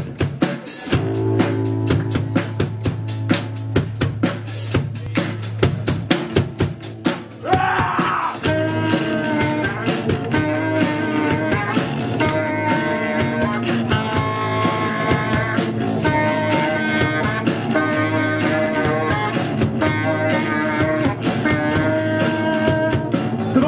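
Live band playing an instrumental intro: rapid drum-kit hits over a steady low bass line, with sustained guitar and saxophone melody lines coming in about eight seconds in.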